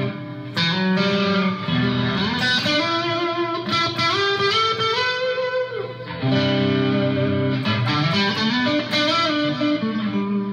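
Electric guitar played through a 1977 Marshall valve head into a Suhr Reactive Load, heard through a studio monitor. Ringing chords come first, then a lead phrase with notes bent upward in the middle, and chords again about six seconds in.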